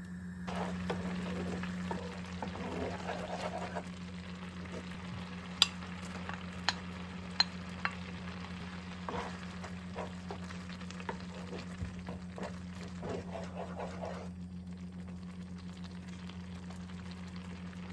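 Kimchi porridge bubbling in a pan on a gas stove and stirred with a wooden spoon, with soft scraping and a few sharp clicks of utensils about six to eight seconds in. A steady low hum runs underneath.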